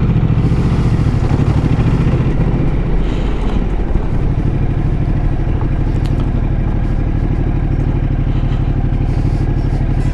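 Ducati Multistrada's engine running steadily while riding a loose gravel road, with the tyres crunching over the stones.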